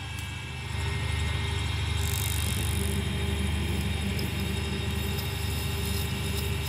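Inside ring lathe running with a steady motor hum that grows louder just under a second in, as the flat-head PCD tool cuts the inside of a spinning ring; a brief high hiss about two seconds in.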